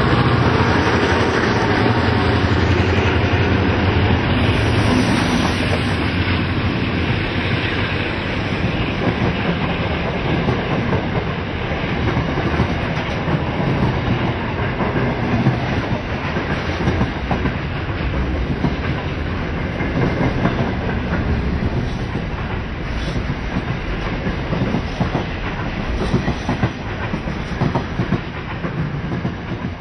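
Diesel-hauled container freight train passing close by. The locomotives' engines run loudly at first, then the wagons' wheels clatter over the rails as the train rolls past.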